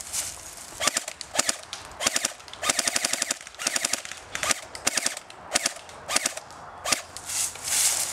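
Airsoft rifle firing about ten short full-auto bursts of rapid clicking shots, with one longer burst about three seconds in.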